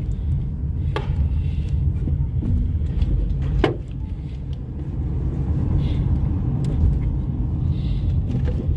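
Low, steady rumble of a car driving, heard from inside the cabin, with two brief knocks about one second and nearly four seconds in.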